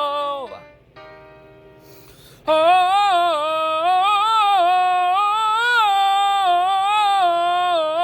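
A singer practising a three-tone vocal exercise on an open 'ah' vowel, stepping through small repeated pitch turns. The first phrase ends with a downward slide about half a second in. A faint steady tone follows, then a quick breath, and a new long 'ah' phrase starts about two and a half seconds in.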